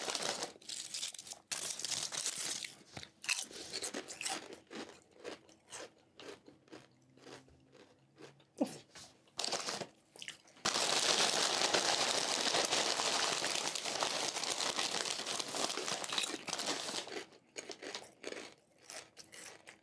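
Close-up mouth sounds of SunChips Spicy Jalapeño black bean chips being bitten and chewed: irregular sharp crunches, with a denser run of continuous crunching about halfway through.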